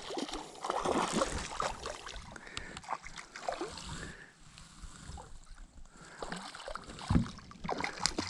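Small tigerfish splashing at the water's surface as it is reeled in toward the bank on light tackle, with a low thump about seven seconds in.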